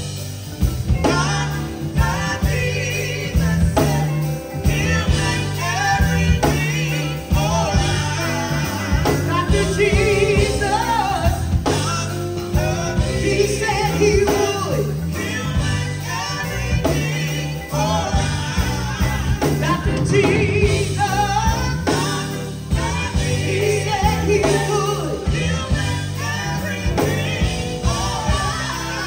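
Gospel singers performing with a live band of drums, bass guitar and electric guitars, the lead vocal carried over a steady repeating bass line.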